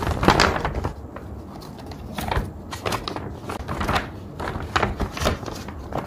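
A folded sheet of paper being opened out and handled, rustling and crinkling in about half a dozen short crackles.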